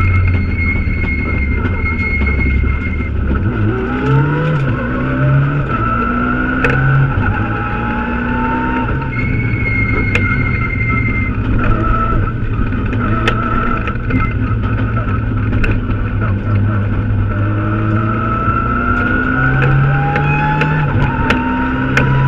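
Mitsubishi Lancer Evolution X rally car's turbocharged four-cylinder engine, heard from inside the cabin, driven hard with repeated rises in pitch that drop back at each gear change. Steady road and tyre noise runs underneath, with scattered sharp ticks.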